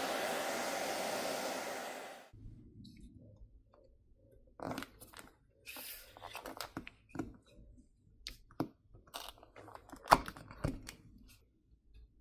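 Hair dryer blowing steadily, switched off about two seconds in. Then a run of clicks, scrapes and crackles as a pry tool works the Samsung Galaxy S25 Ultra's glass back plate loose from its heated adhesive.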